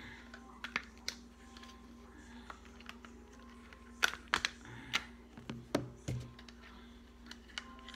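Sharp hard-plastic clicks and taps from handling an OtterBox Defender phone case, a few near the start and a quick run of them with some dull knocks about four to six seconds in.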